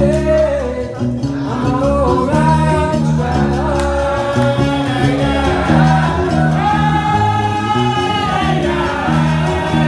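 Gnawa music: a guembri plucks a repeating bass line under the steady clatter of iron qraqeb castanets, while men's voices sing, holding long notes near the end.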